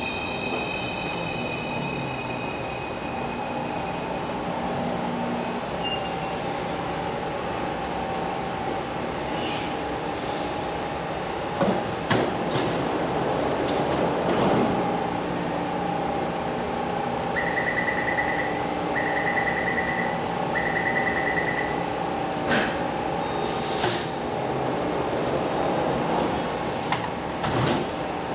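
Taipei Metro C341 train coming to a stop, its high whine giving way to brake and wheel squeals a few seconds in, then a steady hum while it stands at the platform. Near the end, three door-warning beeps are followed by the train and platform screen doors knocking shut.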